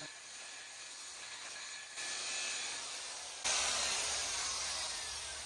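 DeWalt rotary buffer spinning a foam pad with compound over clear-coated paint: a steady whirring rush. It gets louder about two seconds in and again, more sharply, about three and a half seconds in, then slowly fades.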